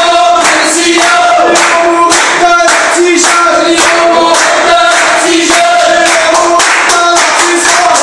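A crowd of protesters chanting slogans in unison, with clapping in time, about two claps a second.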